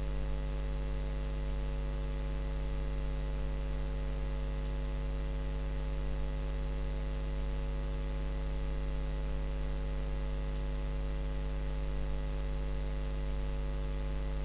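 Steady electrical mains hum with its higher overtones and a light hiss, unchanging throughout.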